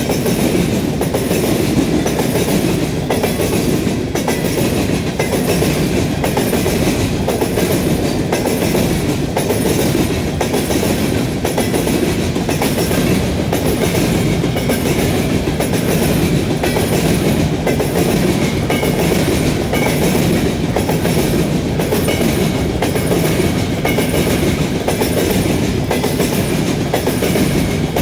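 Freight train cars rolling past at steady speed, a continuous rumble with the wheels clicking over rail joints and the junction switch in an even rhythm of about one and a half clicks a second.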